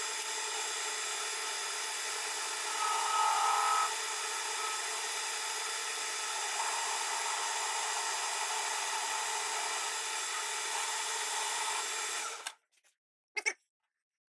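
Soviet-made metal lathe running while its cutting tool turns down a diameter on a small part. A brief, louder, higher-pitched squeal from the cut comes about three seconds in. The sound cuts off suddenly near the end, followed by a short click.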